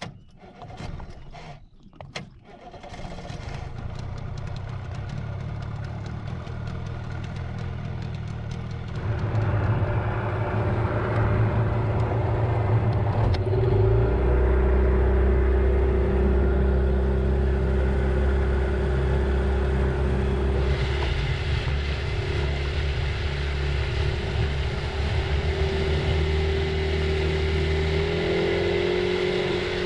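Yamaha 25 hp outboard motor starting after a few knocks, then running steadily and speeding up about nine seconds in and again near fourteen seconds as the boat gets under way.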